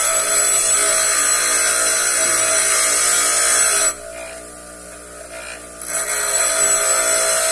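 Bench grinder running with a steel twist drill bit pressed against its stone wheel: a grinding hiss that stops about four seconds in and starts again about two seconds later, with the motor's steady hum in the gap. The dull bit is being reground to a three-point (brad-point) tip.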